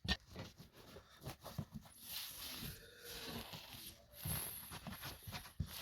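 Hard brush scrubbing dirt and rust off a rusted steel wheel rim's bead seat: a few short scraping strokes, then two longer rasping scrubs.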